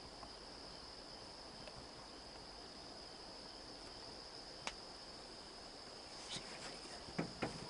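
Steady high-pitched drone of an evening insect chorus in the woods, with a single sharp click a little past halfway and a few soft knocks near the end.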